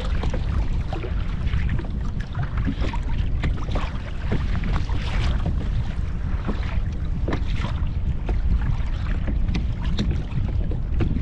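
Strong wind buffeting the microphone with a steady low rumble, while choppy waves slap and splash against the kayak's hull in short, irregular hits.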